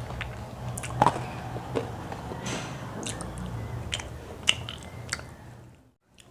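Close-miked chewing and biting of crispy KFC fried chicken, with scattered sharp crunches and crackles. The sound cuts away to near silence briefly near the end.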